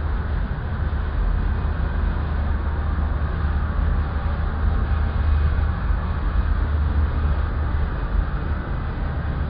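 Steady low mechanical hum of a TOS Varnsdorf WHQ 105 CNC horizontal boring mill running, with no distinct knocks or changes in pitch.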